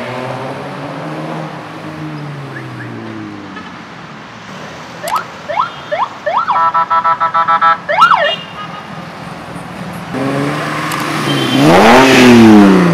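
Cars driving past. In the first few seconds an engine's pitch falls away as one car passes. Between about 5 and 8 seconds come several rising electronic whoops and a rapid warbling tone like a siren or car alarm. Near the end an engine revs up loudly and drops in pitch as a car passes close.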